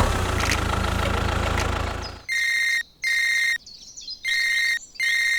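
A motor runs steadily for about two seconds and stops. Then an electronic beeper sounds four times, each high-pitched beep lasting about half a second, in two pairs.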